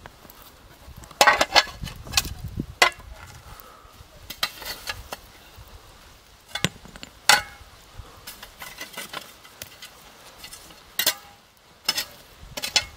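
Steel shovel scraping through hot ashes and clinking against heated stones as they are shovelled into a cooking pit. Irregular sharp scrapes and knocks, a second or a few seconds apart, about a dozen in all.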